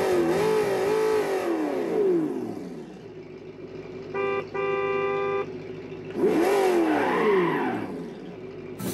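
Electric motor of a 1/10-scale RC car chassis whining as the throttle is worked, with its wheels turning free: the pitch swoops up and falls away, holds steady briefly in the middle, then rises and falls once more.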